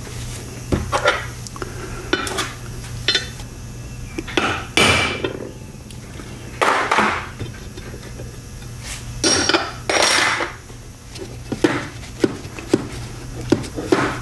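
Metal tools and transmission parts clinking and knocking on a workbench, with a few longer scraping rustles and a run of sharp taps in the second half, as a quarter-inch Welch plug is fitted into a Super T10 four-speed's extension housing.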